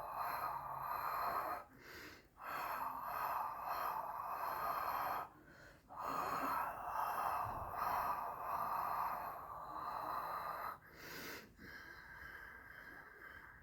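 A person breathing slowly and audibly: long drawn, hissing breaths of several seconds each, broken by short pauses, growing fainter near the end.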